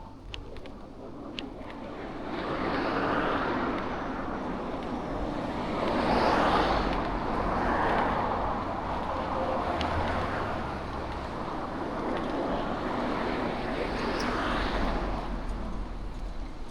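Street traffic: several cars passing one after another, each rising and fading away.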